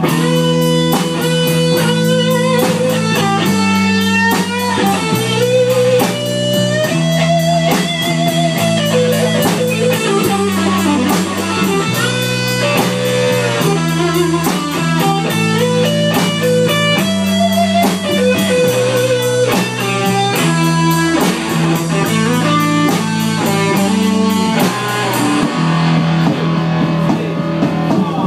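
Live blues band playing an instrumental passage: a guitar lead with bent, wavering notes over a steady bass line and drums keeping an even beat.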